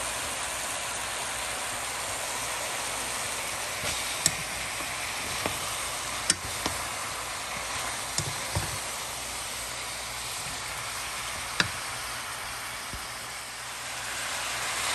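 Stir-fry of sliced brisket and vegetables sizzling in a hot pan, a steady hiss, with a few sharp clicks and knocks now and then as a wooden spatula turns the food against the pan.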